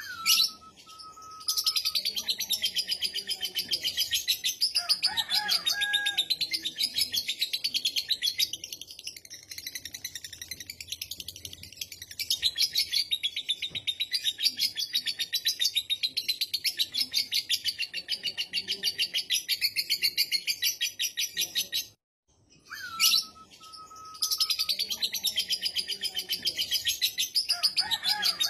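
Lovebird giving its long 'ngekek' chatter: a rapid, high, unbroken run of repeated notes. It stops briefly about 22 seconds in, then starts again.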